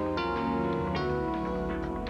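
Instrumental background music: a gentle tune with sustained notes that change every half second or so.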